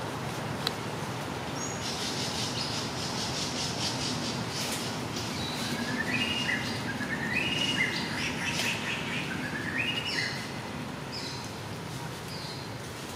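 Birds calling in the forest: a fast string of high notes about two seconds in, then several runs of short notes that climb in steps, with a few short high calls near the end, over steady background hiss.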